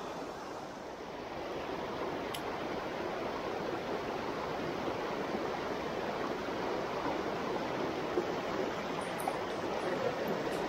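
Shallow, rocky river rushing over stones: a steady rush of fast water.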